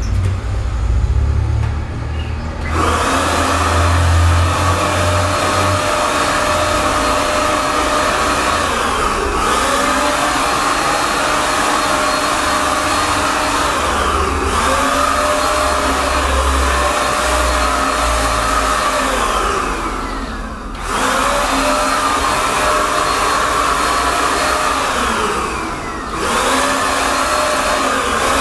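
Handheld electric paint spray gun's motor running with a steady whine while spraying, starting about three seconds in. It stops briefly about four times, the pitch falling each time before it starts up again. A low rumble comes before it starts.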